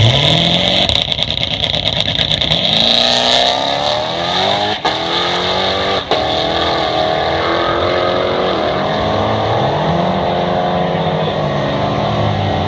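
Twin-turbocharged C7 Corvette Z06 V8 accelerating hard, on wastegate spring boost only. The engine note climbs in pitch again and again and breaks off briefly at each upshift.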